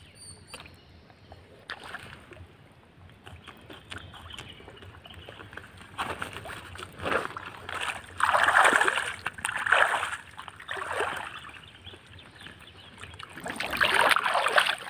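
Pond water splashing and sloshing as people wade and haul a fishing net by hand among lily pads. It comes in several uneven bursts starting about six seconds in, loudest near the end.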